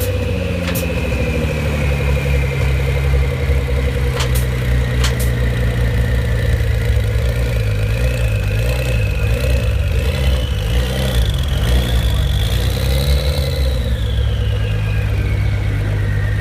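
Ford GT's twin-turbo 3.5-litre EcoBoost V6 idling, with a high turbo whistle over the engine note. The whistle climbs in pitch in the second half and falls away near the end. A few sharp clicks come in the first few seconds.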